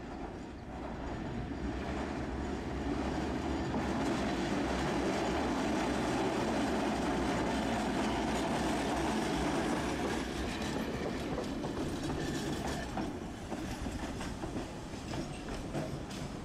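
Tosaden street tram (car 202) passing close by on street track: a steady rumble of wheels on rails that swells to its loudest around the middle as it goes by, then fades, with a run of sharp clicks near the end.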